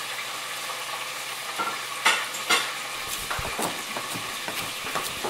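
Food frying in hot oil in a pan on a gas stove, a steady sizzle. Two sharp clinks of kitchen utensils come about two seconds in, then lighter clatter and knocking from about three seconds on.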